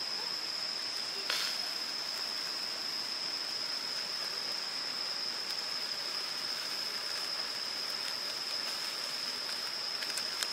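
Steady rushing of a shallow stream, with a continuous high-pitched tone running over it and a single sharp click about a second in.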